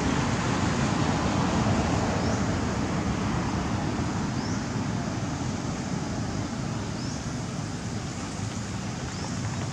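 Steady rushing outdoor background noise that eases slightly in level, with a faint short high chirp repeating about every two seconds.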